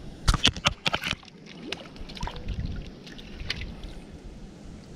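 A hooked crappie splashing at the water's surface as it is reeled in: a quick flurry of sharp splashes in the first second, then a few lighter ones, over a steady low rumble.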